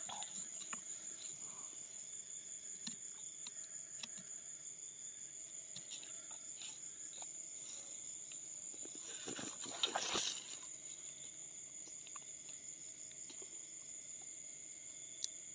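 A steady, high-pitched chorus of night insects such as crickets, with a brief scuffle of rustling and handling about nine to ten seconds in.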